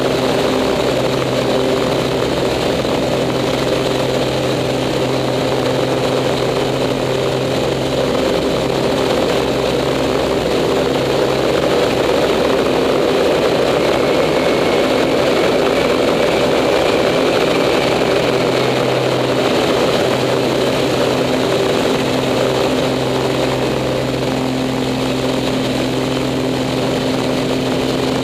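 Pitts S-2B aerobatic biplane's six-cylinder Lycoming engine and propeller heard from inside the cockpit, a loud steady drone with airflow rush. The engine note shifts a little in pitch about a third of the way in and again near the end as the aircraft manoeuvres.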